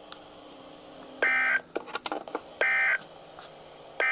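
Three short bursts of warbling digital data tones from NOAA Weather Radio's EAS/SAME encoder, about a second and a half apart, the last starting at the very end: the end-of-message code that closes the severe thunderstorm warning alert.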